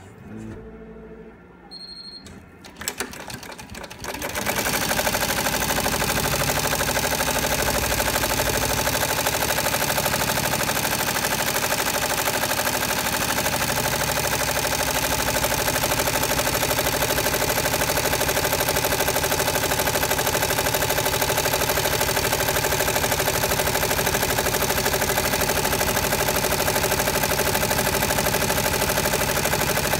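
Multi-needle embroidery machine stitching a monogram into a quilted duffle bag. It comes up to speed about four seconds in, then runs at a steady, fast stitching rhythm.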